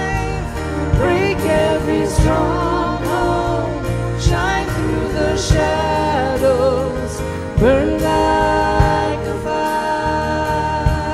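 Live worship band playing a contemporary worship song: a woman's lead vocal sung in phrases with vibrato over acoustic guitar, piano, electric guitar and a drum kit.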